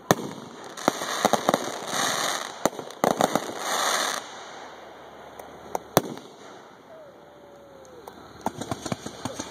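Aerial firework shells bursting: a sharp bang at the start, then a run of pops and crackling stars over the first four seconds, a single loud bang about six seconds in, and scattered pops near the end.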